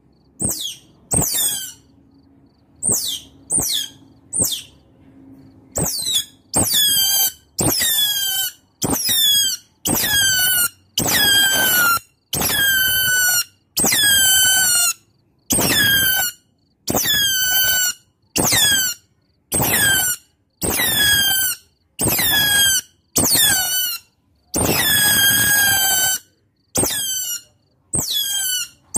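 Otter calling with high-pitched squealing chirps, each falling in pitch. A few short calls come spaced out at first, then from about six seconds in they repeat about once a second.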